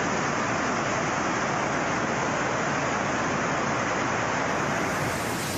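Floodwater rushing along a town street in a steady, even roar, turning brighter about four and a half seconds in.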